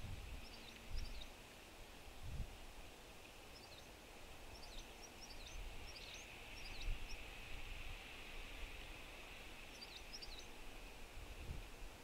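Small songbirds giving short, high chip notes that slur downward, in quick runs of two to four, several times over. Under them are faint low wind rumble and a few soft thumps.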